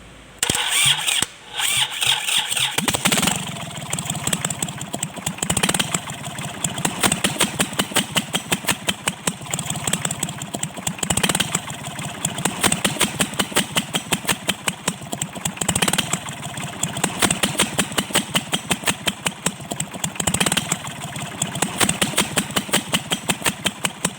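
Kubota L1-255 tractor engine starting with a couple of loud bursts, then running with a fast, even knocking beat. The knock is the fault that the mechanic puts down to a defective valve seat in the cylinder head.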